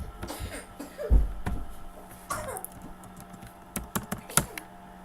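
Keys tapped on a computer keyboard: a short run of sharp clicks about four seconds in, after a single dull thump about a second in and a few brief voice sounds.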